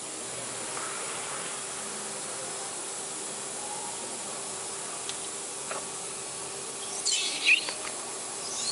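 Hands rubbing and smoothing a flexo printing plate onto the plate-mounting machine's cylinder: a few short squeaky scrapes near the end, over a steady hiss with a faint hum.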